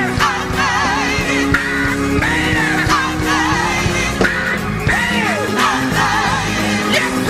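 A live band playing an upbeat soul-gospel groove on organ, bass, guitar, drums and saxophone. A wavering high melody line with vibrato runs over held organ chords and a steady beat.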